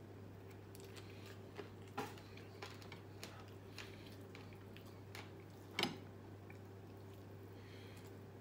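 Eating by hand from a plate: quiet chewing and a few sharp clicks of fingers and food against the plate, the loudest about two seconds in and just before six seconds, over a steady low hum.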